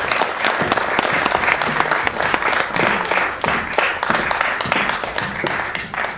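Audience applauding, the clapping dense and steady, fading near the end.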